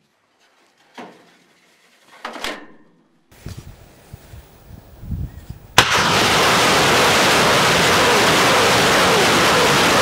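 A couple of metallic knocks as a 122 mm rocket is pushed into a Tornado-G launcher tube, then, just before six seconds in, a sharp crack and the continuous roar of rocket launchers firing a salvo.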